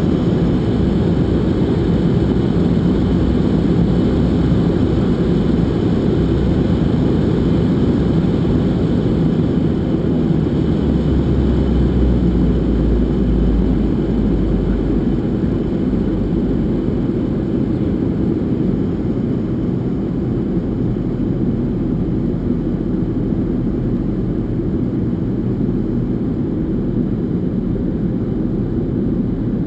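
Steady airliner cabin noise: the jet engines and rushing air heard from inside at a window seat, deep and even, during the descent.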